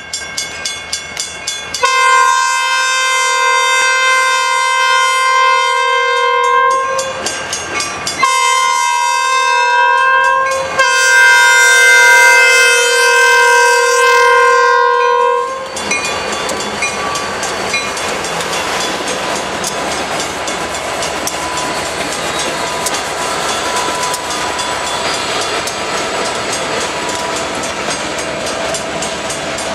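Norfolk Southern diesel locomotive air horn sounding a chord in three blasts for the grade crossing (long, shorter, long), ending about 15 s in. After it, the locomotives and covered hopper cars roll past with a steady rumble and wheel clatter on the rails. A crossing bell rings in quick regular strokes throughout.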